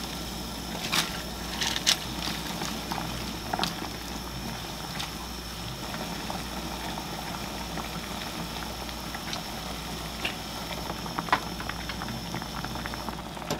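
Broth of a chicken-breast hot pot with mushrooms and napa cabbage bubbling at a steady boil in a wide pot, with a few sharper pops and clicks here and there.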